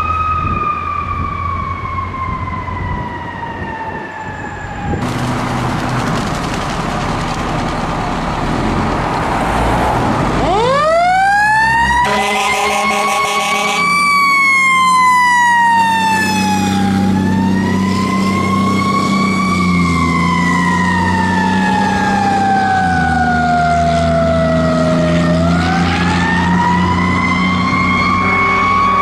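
Fire truck sirens: one winds slowly down, then after a cut another winds up from a low pitch and keeps rising and falling slowly, with short horn blasts mixed in and a diesel engine running underneath.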